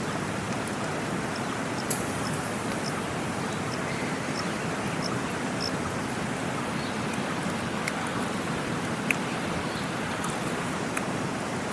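Mountain river rushing steadily, with a few faint clicks now and then.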